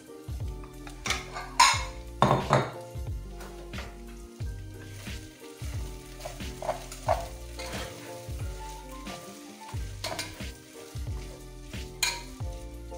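A spoon scooping and scraping cooked rice out of an enamel pot onto a plate, in repeated short scrapes and clinks, over background music.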